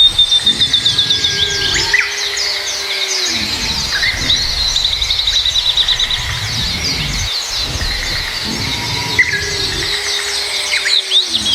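Many small birds chirping and twittering together in a dense, continuous chorus of rapid high trills. Twice, about two seconds in and again near the end, a lower, longer note is held and then falls away.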